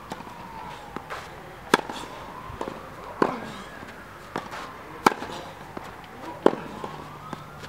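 Tennis ball struck by rackets in a groundstroke rally on a clay court: four sharp pops roughly every one and a half seconds, with fainter knocks between them.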